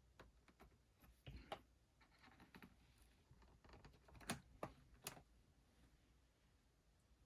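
Faint, scattered plastic clicks and taps from a laptop keyboard being pried at to release its retaining tabs, with a few sharper clicks about four to five seconds in.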